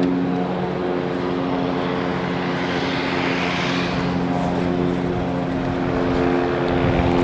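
Steady drone of a propeller airplane's engine, a hum of several tones, with a hiss swelling briefly about three seconds in.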